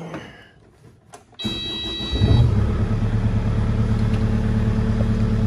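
Kubota mini excavator's diesel engine being started: about a second and a half in, the starter whirs briefly, then the engine catches and runs steadily.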